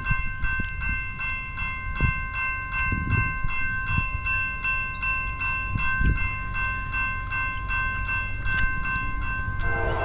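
Grade-crossing warning bell ringing, with rapid, even strikes over a steady ringing tone. Near the end, the horn of the approaching freight locomotive starts to sound.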